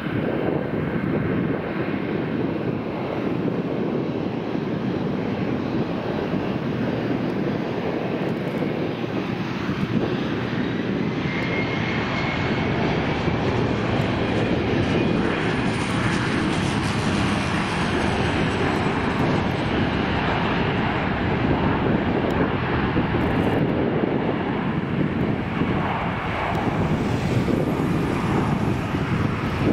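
Twin rear-mounted jet engines of a Gulfstream business jet running with a steady rumble as it taxis and rolls down the runway, growing broader and a little louder about halfway through, with a faint high whine.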